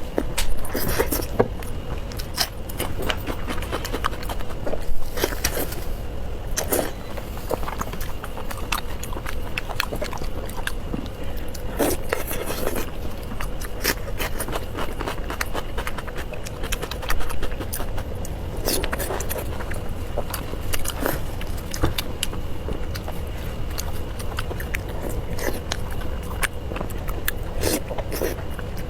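Close-miked eating sounds: a person chewing and lip-smacking on soft, fatty pork intestine with pig brain, making irregular wet smacks and clicks over a steady low hum.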